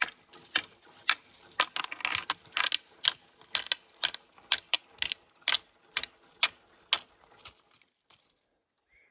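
Clattering and rustling from a person crawling under low debris, an irregular run of sharp clicks and rattles about two or three a second that stops about seven and a half seconds in.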